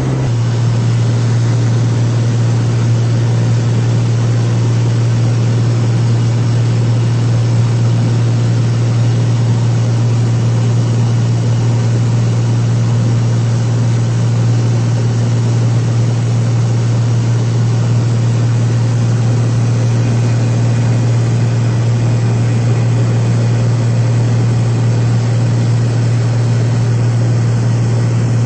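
Light propeller airplane's engine and propeller droning steadily in flight, one strong unbroken low hum.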